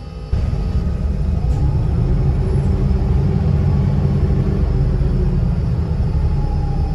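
Double-decker bus heard from inside the lower deck as it pulls away: its engine and drivetrain rumble rises sharply, then runs on steadily, with a faint whine rising in pitch as it picks up speed.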